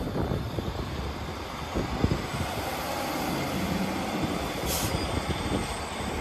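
ScotRail Class 156 diesel multiple unit's underfloor diesel engines running, a steady low rumble with occasional knocks. A short hiss comes near the end.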